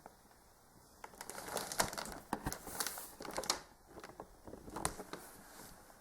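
Packaging being handled, crinkling and rustling with many small clicks, starting about a second in and easing off near the end.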